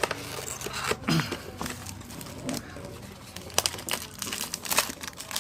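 Plastic packaging crinkling and rustling, with scattered sharp clicks and taps, as the tablet's docking keyboard is unwrapped and handled.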